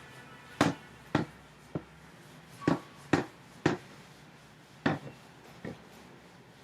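About eight short, light taps at irregular intervals, the sounds of a pen or stylus at work as a picture is drawn.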